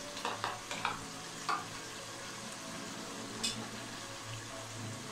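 A spoon scraping and tapping cream out of a plastic bowl into a pan, several quick clicks in the first second and a half and one more about three and a half seconds in, over the steady sizzle of chicken cooking in the pan.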